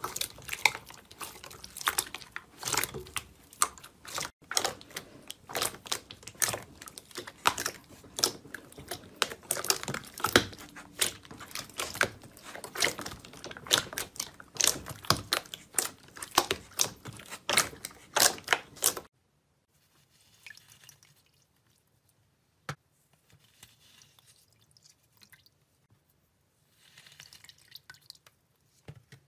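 Hands squishing and pressing very wet slime, making a dense, irregular run of sticky squelches, clicks and pops. The squelching stops abruptly about 19 seconds in, leaving only faint, scattered wet crackles.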